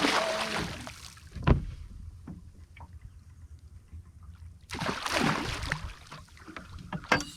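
A hooked fish of about a metre thrashing at the side of a small boat, sending up two bursts of splashing, one at the start and one about five seconds in. A sharp knock against the boat comes about a second and a half in, and a few clicks near the end.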